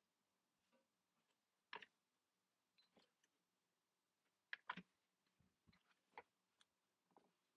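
Faint, scattered taps and light clicks of 2.5 mm cardboard pieces being handled, slid and set down on a wooden board, the loudest few coming a little past the middle.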